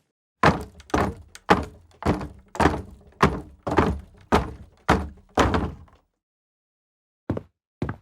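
Footsteps on a wooden floor: about ten heavy steps, two a second, each with a hollow thud from the boards. They stop for about a second, then lighter steps start again near the end.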